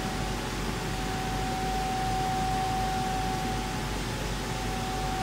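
Laser cutting machine running, a steady hiss of fans and air with a constant high tone through it.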